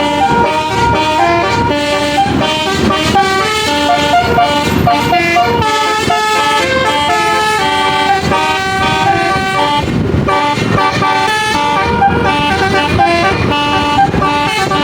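Basuri telolet bus horn playing a continuous melody: several horn notes sound together and step up and down in pitch through the tune.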